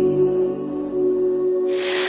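Electronic music track: sustained synth chords with the bass dropped out, and a hiss that swells near the end.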